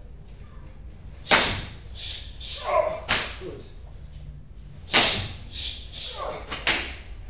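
Sharp slaps and snaps of blocks and punches in a Kenpo karate partner drill, uniforms and forearms snapping. Two quick series of four or five.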